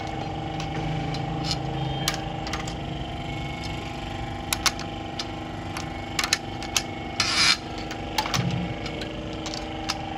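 Scattered metal clicks and clinks of hands working the timing chain and camshaft sprocket on a Honda Civic engine, with a short rasping scrape about seven seconds in. A steady hum runs underneath.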